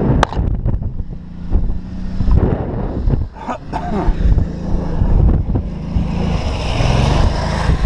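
Suzuki RF600 inline-four motorcycle engine in a dune buggy, running steadily with heavy wind buffeting on the microphone, with a few sharp knocks.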